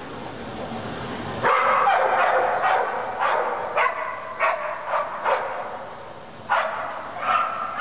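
Dog barking repeatedly, about two sharp barks a second, starting about a second and a half in, with two more barks near the end.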